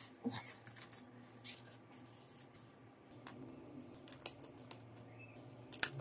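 Scattered sharp clicks and short light scrapes of small tools and parts being handled on a smartphone during repair. There is a quieter stretch in the middle and a quick cluster of clicks near the end.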